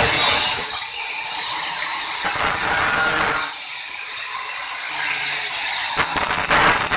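Electric angle grinder cutting through a corrugated metal roofing sheet, a loud, harsh hiss. About three and a half seconds in the sound thins out as the cut ends, and it changes again near the end.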